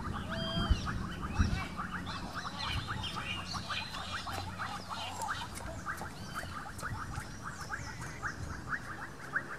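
Outdoor animal calls: birds chirping over a fast, even pulsing call of about five pulses a second.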